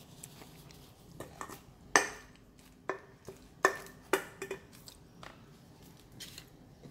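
Tableware being handled on a hard tabletop: plastic food tubs and an aluminium beer can being moved and set down. A string of knocks and clinks, several with a short ringing after them, the loudest about two seconds in.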